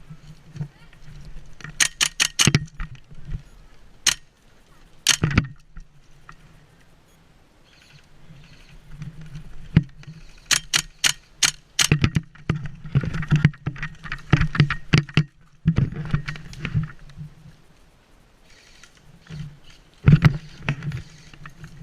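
Airsoft gun fired in short strings of quick single shots, each a sharp crack, over a rattling of gear and movement.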